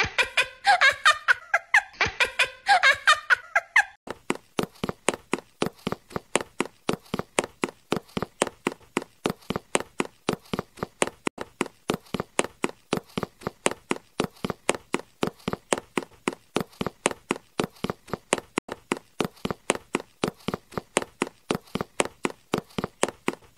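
A few seconds of high, wavering pitched calls, then an even series of short sharp clicks, about four a second.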